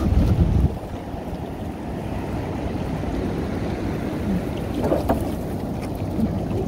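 Wind rumbling on the microphone over water moving around a small open fishing boat at sea, steady and without any engine note. It is louder for the first half-second or so.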